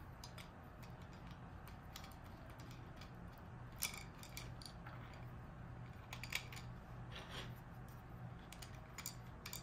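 Small 3D-printed plastic parts handled and snapped together as tentacles are fitted onto gears and the gears pressed into a plastic plate: scattered light clicks, the clearest about four seconds in and again about six seconds in, over a faint steady hum.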